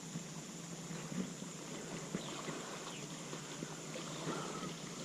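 Faint lakeside ambience: a low steady hum with scattered small ticks and clicks, and a short steady chirp about four seconds in.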